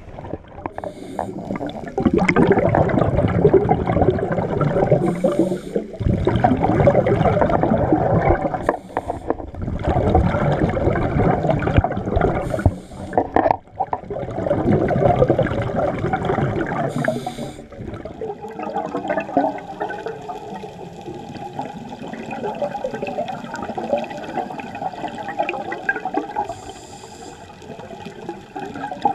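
Scuba regulator breathing heard underwater through a camera housing: four long, loud rushes of exhaled bubbles, each a few seconds long, with short hisses of inhaling between them. After that it goes on as a quieter, steady bubbling and crackle.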